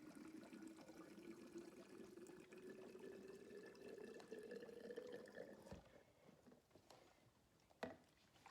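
Gasoline pouring from a gas can into a chainsaw's fuel tank, its pitch rising slowly as the tank fills. The flow stops a little over halfway through with a soft thump, and a click follows near the end.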